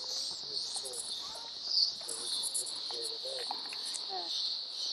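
A chorus of insects droning steadily at a high pitch, without a break.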